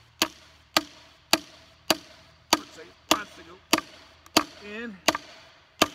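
A 4-pound hammer striking a wedge driven into an ash log to start the split: about ten sharp, evenly spaced blows, a little over one and a half a second.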